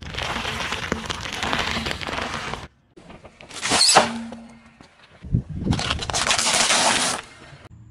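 Car tyre rolling over and crushing things in three short cuts. First a crisp crackling as it flattens heads of romaine lettuce, then a single sharp crack about four seconds in, then a crunchy crackling as it breaks wafer ice-cream cones.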